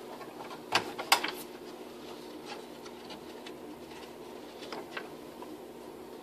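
Cut-out wooden bowl rings being handled: a few light clicks and knocks of wood on wood, the loudest about a second in, over a faint steady hum.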